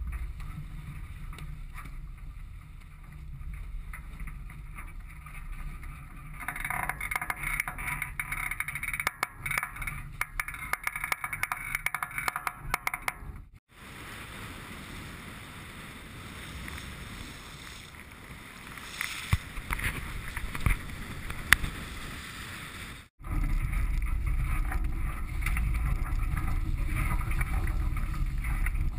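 Wind rumbling on the microphone and water rushing past the hulls of a sailing catamaran under way. About ten seconds in comes a run of sharp clicks as a deck winch is worked. The sound changes abruptly twice, and the wind rumble is loudest near the end.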